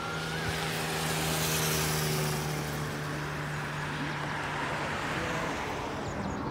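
A motorcycle and then a car drive past at speed. The engine and tyre noise swells as each one goes by, over a steady engine hum that stops about two-thirds of the way in.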